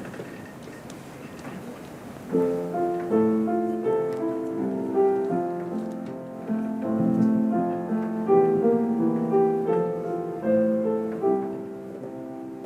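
A short lull of room noise, then a piano playing a song's introduction, starting a little over two seconds in.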